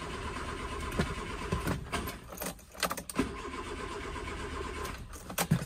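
Nissan S-Cargo's starter motor cranking the engine, which turns over but does not catch. There are two spells of cranking with a short break about two and a half seconds in. The engine is not getting fuel, which the owner puts down to a failed fuel pump.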